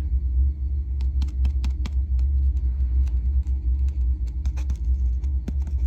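Radio loudspeaker giving a steady low hum with scattered clicks and crackles, tested after its cone was reset with water, a shim and heat-gun drying; it now sounds a lot better.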